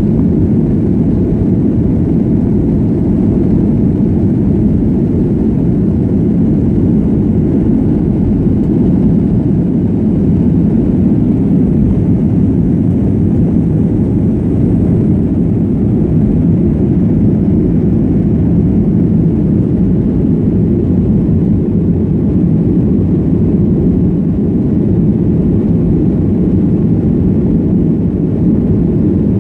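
Jet airliner at takeoff power heard from inside the cabin through the takeoff roll and climb-out: a loud, steady, low engine-and-airflow rumble that holds even throughout.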